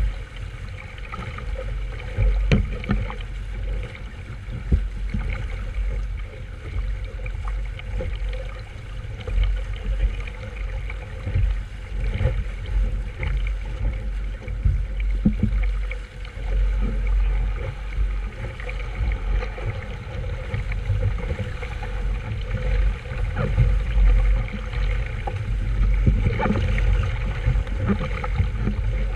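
Wind buffeting the microphone aboard a small sailboat, with water sloshing against the hull and occasional short knocks.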